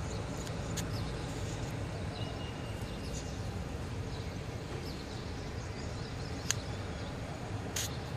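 Steady low outdoor city background noise, like a distant traffic hum, with a few faint short ticks and chirps over it.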